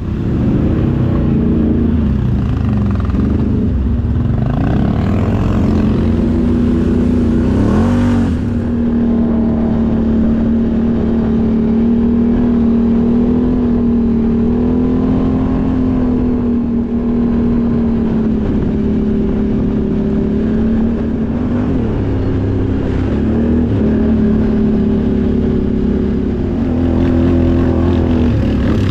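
Can-Am Outlander XMR 1000R ATV's Rotax V-twin engine under way. It revs up and down for the first several seconds, climbs about eight seconds in, then holds a steady high pitch with a few brief dips.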